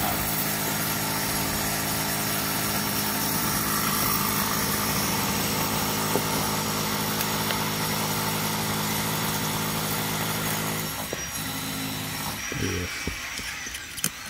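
A motor running steadily with a hum and a hiss, fading out about eleven seconds in, followed by a few faint clicks.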